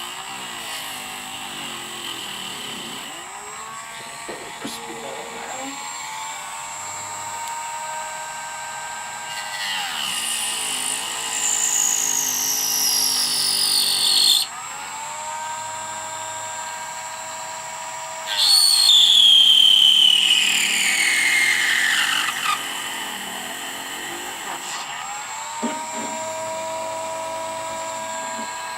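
Dremel rotary tool running with a steady high whine, grinding a small piece off the front of a Hogue rubber AR-15 pistol grip. Twice it gets louder for a few seconds, its pitch sliding down as the bit bears into the grip.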